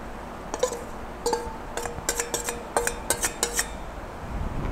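A steel spoon clinking and tapping against a steel bowl and kadai: a quick run of about ten sharp metallic taps over some three seconds, several of them ringing briefly.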